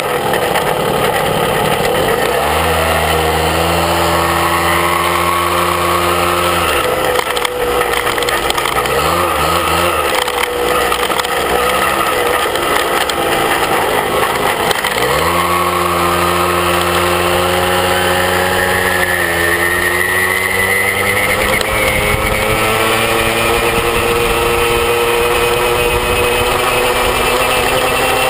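Small moped engine running under way, its pitch falling sharply as it slows at the start and again about halfway through, holding steady for stretches, and climbing as it speeds up over the last several seconds.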